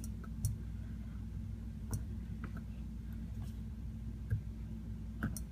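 Steady low hum with a few scattered faint clicks and taps.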